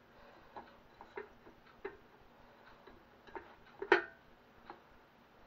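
A stirring utensil clicking and scraping against a metal cake tin while mixing raw egg mixture: light, irregular clicks every half second or so, with one louder clink about four seconds in.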